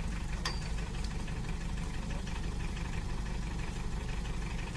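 A vehicle's engine idling steadily, with a single short click about half a second in.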